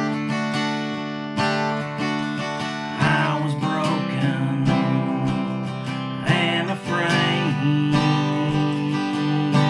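Acoustic guitar strummed in a steady rhythm, its chords ringing on between strokes, with a man's voice singing over it in places.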